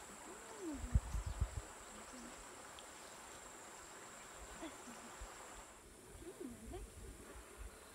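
Steady high-pitched insect drone over outdoor background, with a few short gliding calls and a cluster of low thumps about a second in; the background changes just before six seconds.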